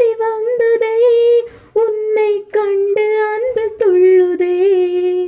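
A woman singing solo without accompaniment, in long held notes with short breaths between phrases; her voice stops at the very end.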